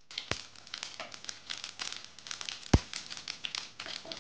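Mustard and cumin seeds spluttering in hot oil: a dense, irregular run of small crackles and pops, with two louder pops, one just after the start and one about three quarters of the way through.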